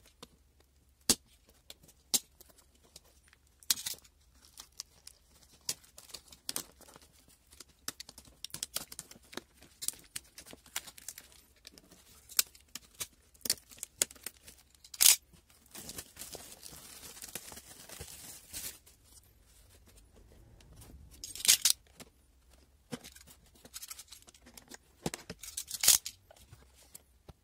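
Plastic shrink-wrap on a cardboard box being slit with a utility knife and torn off: scattered sharp crackles and crinkles of the cellophane, with a longer tearing rustle about halfway through.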